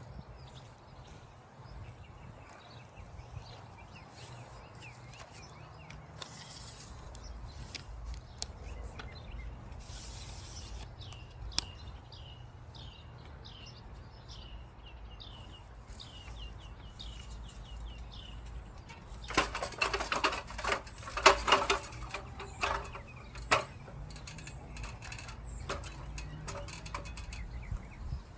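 Small birds chirping in quick series of short, falling notes, over a low outdoor rumble. About two-thirds of the way through comes a few seconds of louder rustling and crackling.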